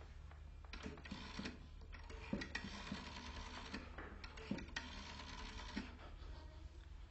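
Telephone being dialled: several short stretches of quiet mechanical whirring and clicking, over a faint steady hum.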